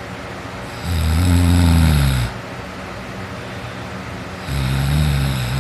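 A teenager sleeping on his back, snoring loudly: two long, low, rasping snores about three and a half seconds apart.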